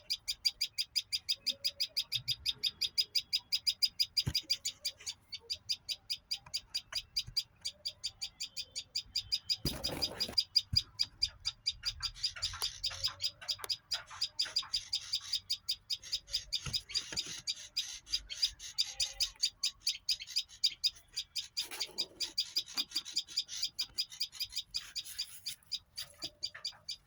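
A bird chirping on and on in a rapid, evenly spaced series of short, high chirps, several a second, with fainter lower calls from other birds now and then. There is a brief rustling noise about ten seconds in.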